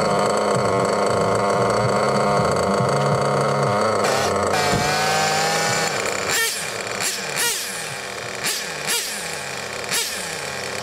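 Small nitro glow engine of an RC car running steadily, then revved in about six short throttle blips, each rising in pitch and falling back.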